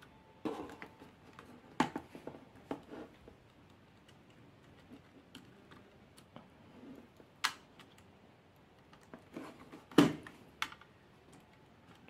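Small scattered clicks and taps of hands working inside an opened laptop, unplugging the hard drive's connector and taking hold of the drive. A handful of sharp clicks stand out; the loudest comes about ten seconds in.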